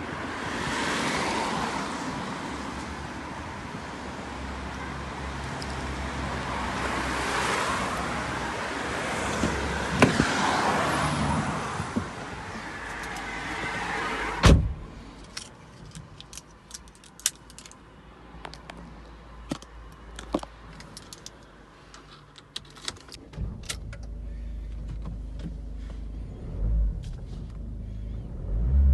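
Wind and outdoor noise, then a single loud bang like a car door shutting about halfway through. After it come scattered clicks of handling inside the cabin. In the last few seconds the Ford Transit Courier's engine is running at idle as a steady low hum.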